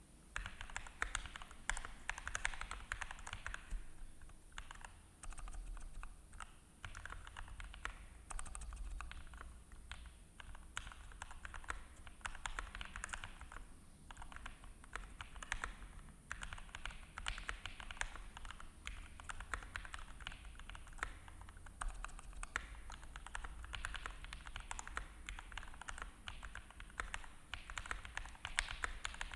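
Continuous typing on a GMMK Pro aluminium mechanical keyboard fitted with hand-lubed JWICK Yellow linear switches and Cherry-profile keycaps: a rapid, steady patter of keystrokes with brief pauses now and then.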